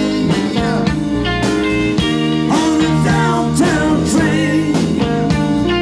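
Live rock band playing, with electric guitar over drums and bass guitar.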